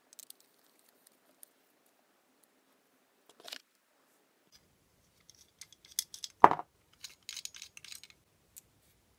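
Small metal torch nozzles being handled and worked out of a little black holder: scattered light clicks, one sharp click a little past the middle, then a quick run of small metallic clinks.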